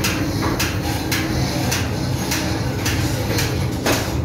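Ship's engine-room machinery running with a steady low drone, under a regular series of sharp clicks about twice a second.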